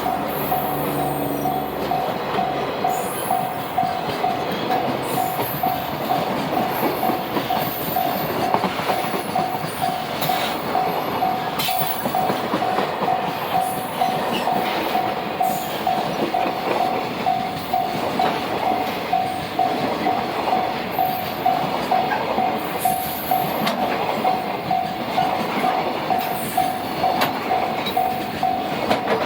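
A Japanese level-crossing alarm rings in a steady, even pulse while a local train runs past, with continuous rail rumble and scattered sharp wheel clicks.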